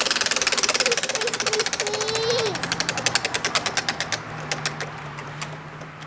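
A spinning prize wheel ticking: fast clicks that slow and spread out, then stop about five and a half seconds in as the wheel comes to rest.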